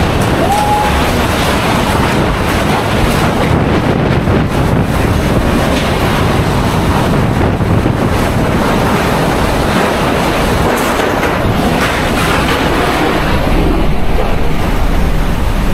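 Hurricane-force wind blowing hard and steadily, buffeting the microphone.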